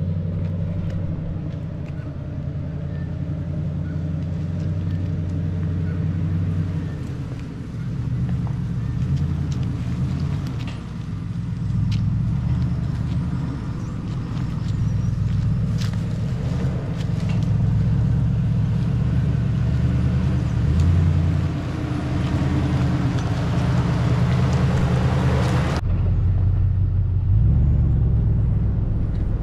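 Toyota LandCruiser 100 series 4WD driving along, its engine running steadily with a low note that rises and falls as it goes. The higher hiss cuts off suddenly near the end, leaving only the engine.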